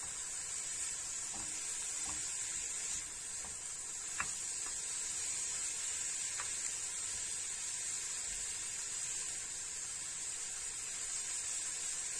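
Grated red beetroot sizzling in a little olive oil in a frying pan, a steady hiss, with a few faint clicks of a wooden spoon stirring it.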